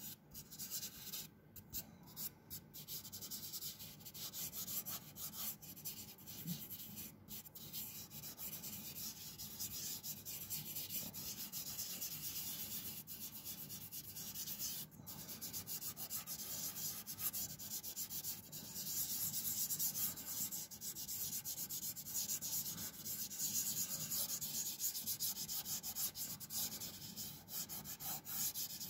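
Fingertips rubbing back and forth over a pastel drawing on paper, blending the colour: a steady dry rubbing hiss of quick strokes, louder in the second half.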